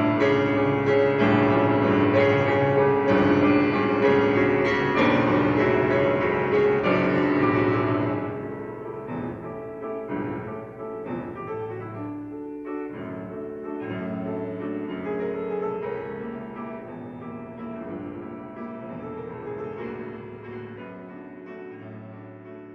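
Instrumental music with piano to the fore. It is full and fairly loud at first, then thins out and grows quieter about eight seconds in.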